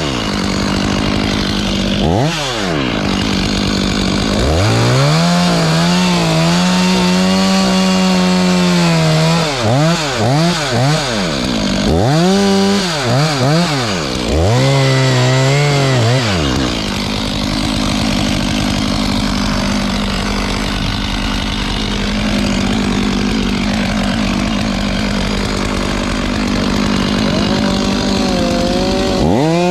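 Two-stroke chainsaw revving up and down repeatedly, with quick throttle blips and a few seconds at a time held at high revs. Near the middle it settles to a steadier, lower, wavering pitch for about ten seconds, then revs up again near the end.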